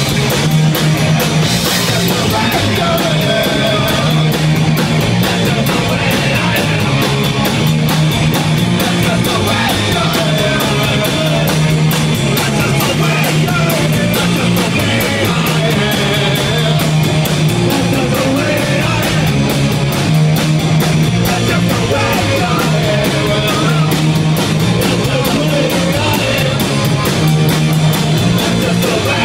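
Loud punk rock music with guitar, drums and singing, playing without a break.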